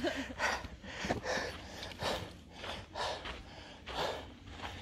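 A hiker breathing hard and fast through the mouth, about two breaths a second, out of breath from a steep climb.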